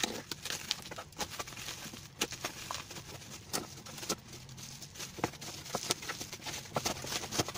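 Bubble wrap on a package crinkling and crackling as hands turn it over and start to unwrap it, with many irregular sharp crackles.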